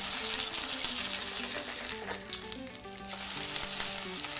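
Corn fritters, a batter of grated green corn, frying in hot oil in a dark pan: a steady dense sizzle and crackle of the oil around them.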